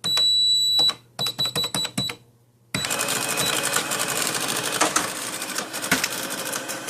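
Cash register being operated: a high beep with key clicks, a quick run of key presses, then the machine's mechanism chattering rapidly and steadily from about three seconds in as it runs through its cycle.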